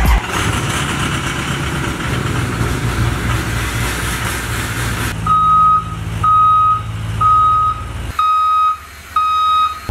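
Converted short school bus reversing into a garage bay: a broad vehicle rumble, then about halfway through its reversing alarm beeps five times, each steady beep about half a second long and roughly a second apart.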